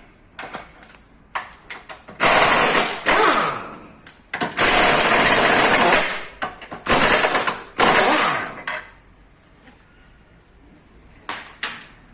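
Air impact wrench running in several bursts of one to two seconds, loosening the bolts that hold the subframe and steering rack, with a shorter burst near the end.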